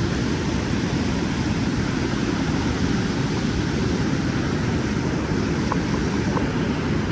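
Steady rushing roar of river water pouring through the lock and dam, with a few faint light ticks near the end.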